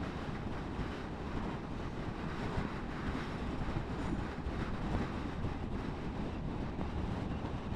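Suzuki GSF1250 Bandit motorcycle on the move: a steady rush of wind on the microphone over engine and road noise, without any sharp changes.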